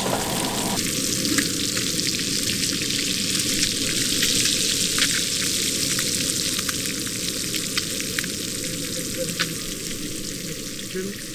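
Striped bass fillets frying in melted butter in a nonstick frying pan: a steady sizzling hiss full of small crackling pops.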